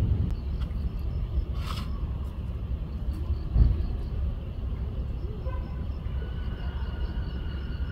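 Outdoor background with a steady low rumble. There is a short hiss about two seconds in, a single soft thump a little later, and faint steady high tones near the end.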